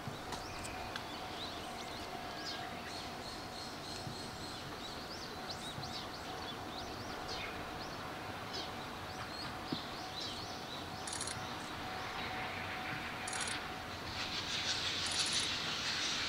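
Birds chirping over quiet rural background noise, with a faint steady tone beneath. In the last couple of seconds a rushing hiss rises as a train approaches.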